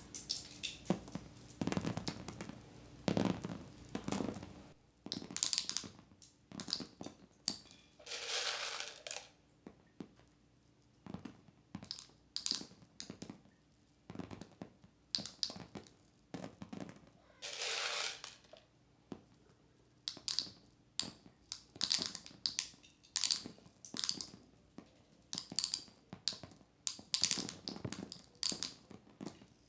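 Chickens pecking at dried corn kernels on the ground: many irregular quick taps and crunches, with a couple of longer rustling bursts about 8 and 18 seconds in.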